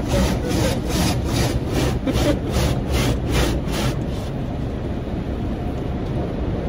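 Automatic car wash's rotating cloth brushes swishing rhythmically against the car, about three strokes a second, heard muffled from inside the cabin. They stop about four seconds in, leaving a steady low rumble from the wash.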